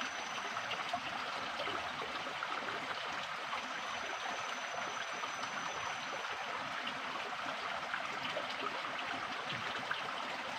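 Mountain spring water flowing steadily, an even trickling rush.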